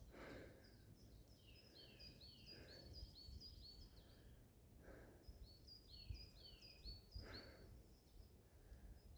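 A small songbird singing faintly in the forest: two bouts of quick, repeated high notes, each dropping in pitch, the first bout ending about four seconds in and the second starting about a second later. A few soft rustles sound in between.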